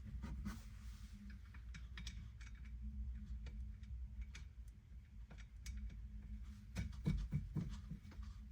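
Scattered light clicks, ticks and scrapes of small parts and tools being handled, with a few duller knocks near the end, over a steady low hum.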